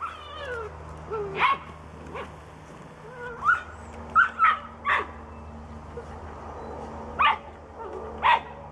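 Young puppies, nearly eight weeks old, giving a string of short, high yips and barks, some sliding up or down in pitch, with gaps of up to about two seconds between them.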